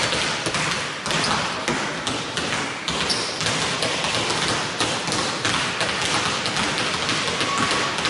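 Basketballs being dribbled on a hardwood court in a large sports hall: a steady, irregular run of bounces from several balls at once.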